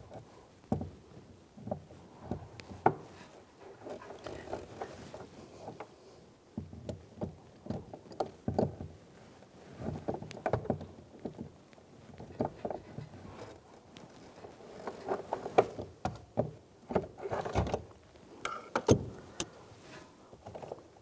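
Irregular clicks, knocks and creaks of a ratchet and lock ring tool working loose the lock ring on a Volkswagen Beetle's fuel pump. Near the end the ring is turned by hand.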